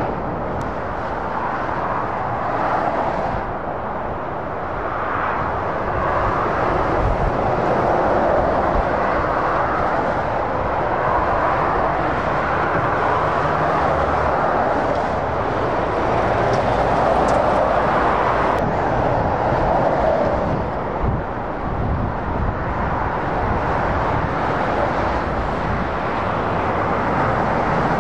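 Motorway traffic: the steady tyre roar and engine noise of lorries and cars passing at speed, swelling and easing every few seconds as vehicles go by.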